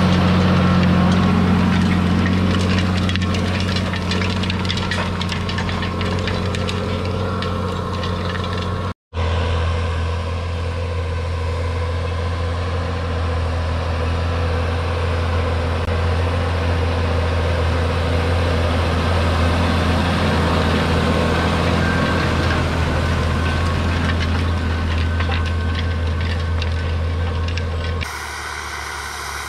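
2009 Valtra T151's 6.6-litre six-cylinder diesel engine running at a steady speed with a deep, even hum. The sound drops out for a split second about nine seconds in and turns quieter and duller near the end.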